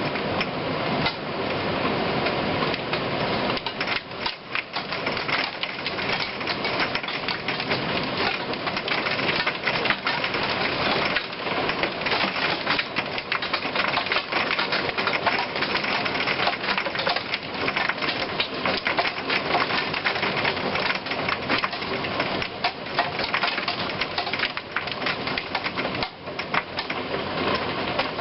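Heavy thunderstorm downpour pelting hard surfaces, a steady, dense patter of rapid impacts.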